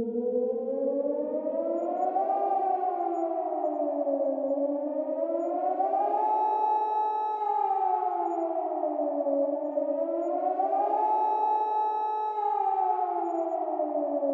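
Civil defence siren sounding a nuclear attack warning wail: two tones together rising and falling slowly, about every four to five seconds, held briefly at the top of each rise.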